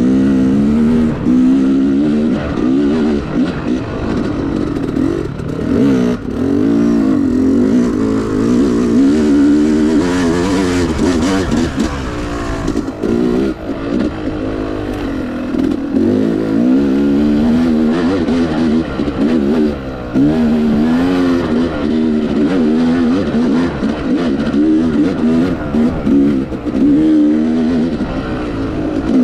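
Yamaha YZ250X two-stroke enduro dirt bike engine under way. Its pitch keeps rising and falling every second or two as the throttle is worked on and off.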